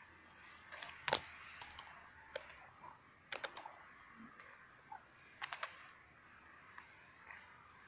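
Chickens' beaks tapping on a concrete ledge as they peck grain: scattered sharp taps, the loudest about a second in, with quick runs of two or three taps in the middle and later on.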